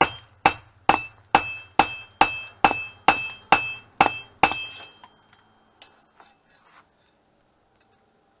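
Wooden mallet striking a steel draw knife blade in a steady rhythm, about two blows a second, each with a short high metallic ring, to straighten the blade. The blows stop about four and a half seconds in, followed by a few lighter taps.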